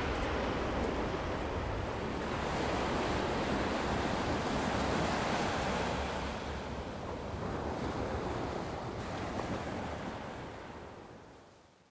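Sea waves washing: a steady rush of surf that swells and eases, fading out near the end.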